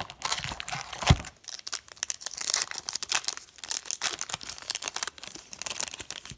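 Foil wrapper of a Fleer Showcase hockey card pack being torn open and crinkled by hand, with a dull thump about a second in.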